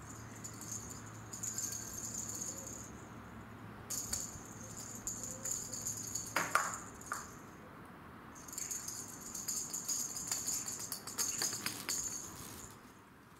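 A small bell jingling in three stretches of a few seconds each as a cat moves around, with one short, louder sound about halfway through.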